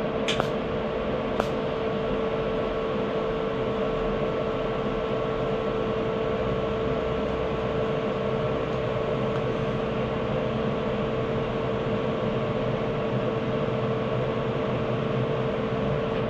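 TIG welding on stainless steel: a steady electric hum from the welder and arc, with one constant mid-pitched tone over a hiss. Two sharp clicks come about half a second and a second and a half in.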